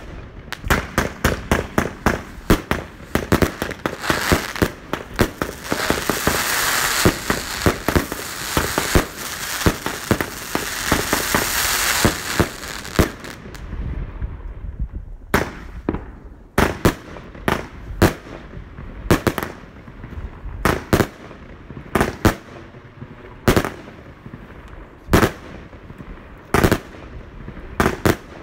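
Lumberjack 282-shot consumer firework compound (J-fireworks/China Red) firing: a fast barrage whose shots run together into a continuous crackling rattle for about thirteen seconds. It then stops for a couple of seconds and resumes with separate single shots and bursts, about one or two a second.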